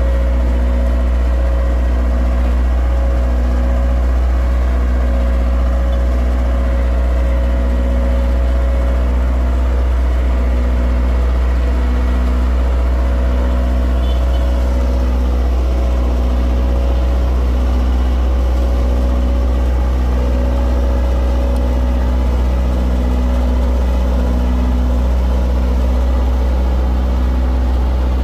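An engine running steadily at a low, even speed, with a deep rumble and a tone that swells and fades about every second and a half.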